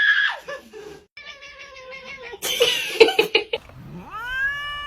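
A house cat meowing and yowling in several calls: a wavering call, a louder harsh one, then a long drawn-out meow from about four seconds in that rises and slowly falls in pitch.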